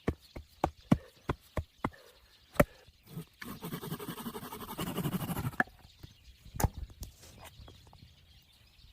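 Hand tools working wood: a quick run of sharp wooden knocks, about three a second, for the first couple of seconds. Then about two seconds of rasping, scraping woodwork, then a few single knocks.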